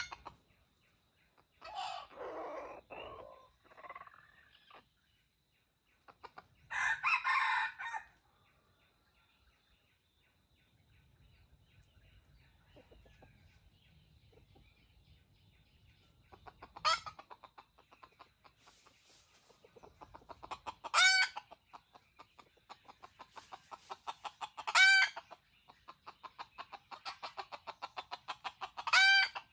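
Red junglefowl (wild rooster) crowing in short calls, several times in the second half about four seconds apart, with rapid clucking between them. Two noisy rustling bursts come in the first eight seconds.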